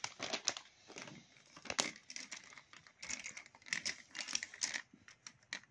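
Plastic gel pens clicking and rattling against each other and the tabletop as they are gathered by hand, in irregular light clicks and rustles.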